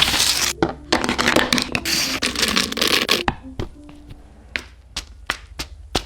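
Scraping and crackling from food being handled in cookie-making for about three seconds, then a series of sharp separate taps.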